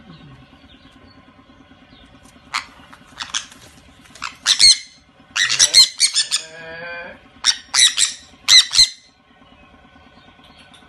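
Sun conures screeching: a run of sharp, shrill squawks, some in quick pairs, starting a couple of seconds in, with a lower chattering call in the middle.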